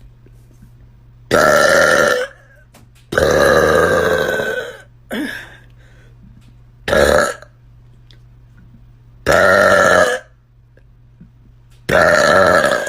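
A person burping loudly six times, one burp every two seconds or so, the third short and quieter.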